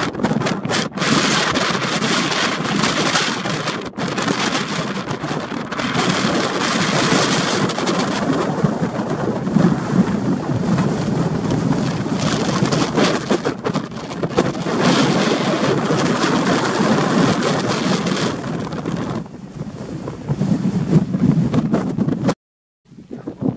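Wind buffeting the camera's built-in microphone: a loud, rough rush that surges in gusts, breaking off abruptly near the end.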